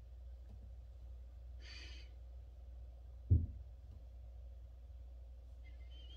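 A soft breathy sigh about a second and a half in, then a single low thump a little past the middle, over a low steady hum.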